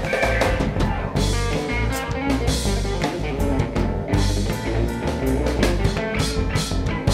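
A live band playing together: electric guitar, Roland RD-700GX stage piano, electric upright bass and drum kit, with a steady beat and repeated cymbal hits.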